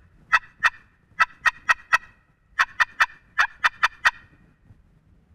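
Wild turkey yelping: short, sharp, raspy notes about four a second, in runs of two, four and seven, stopping a little after four seconds in.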